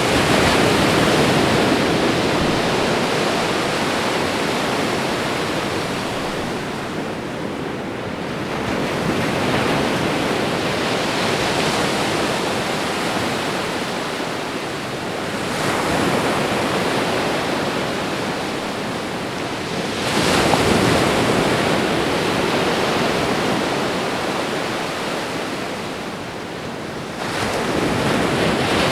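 Ocean waves breaking on a shore. The wash swells with a new wave every five to seven seconds and ebbs between them.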